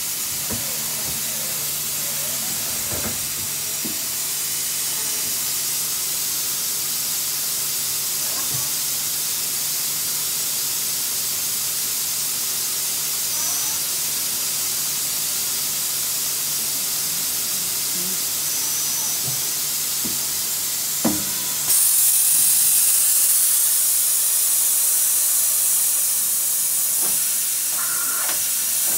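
Mori Seiki MT2000 CNC lathe running with its chuck spinning: a steady hiss with a faint low hum and a few sharp clicks. About three-quarters of the way through, the hiss gets louder and brighter.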